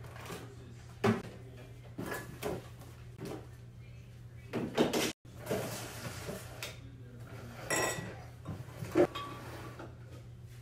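Kitchen items (a plastic pitcher, glass cups, a soda can, a blender base) being picked up and set down on a countertop: scattered knocks, clunks and clinks over a faint steady hum. The sound cuts out for a moment about five seconds in.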